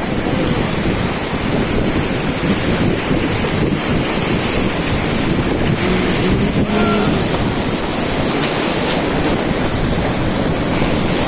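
Loud, steady rushing of whitewater rapids around a raft, with wind buffeting the microphone.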